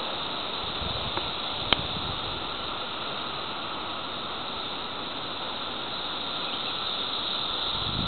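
Seventeen-year periodical cicadas chorusing as a steady, even drone, with wind noise on the microphone underneath. A single sharp click comes a little under two seconds in.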